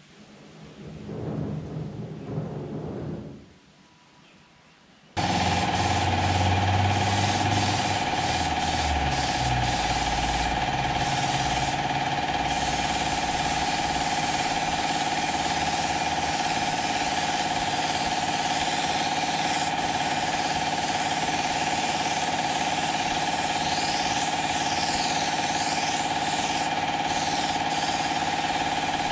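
Paint sprayer starting up suddenly about five seconds in and running steadily: a loud, even whine with hiss while white paint is sprayed onto a wooden cot. Before that, a spatula scrapes and spreads wood filler on a wooden cot leg.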